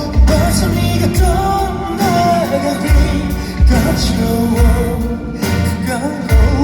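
Live pop music from a concert sound system: a steady kick-drum beat under a gliding melodic lead line.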